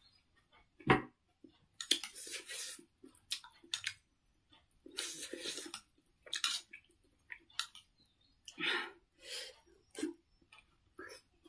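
Close-up eating of a spoonful-by-spoonful noodle soup: slurps and chewing in irregular bursts, with small spoon clicks against the bowl. A sharp knock about a second in is the loudest sound.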